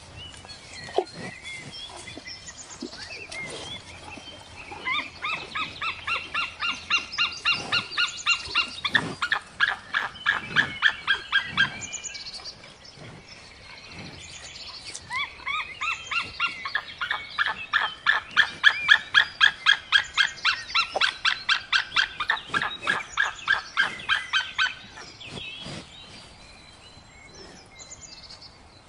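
White-tailed eagle calling: two long series of rapid, high, repeated notes, several a second. The first starts about five seconds in and the second near the middle, and each begins lower and rises in pitch.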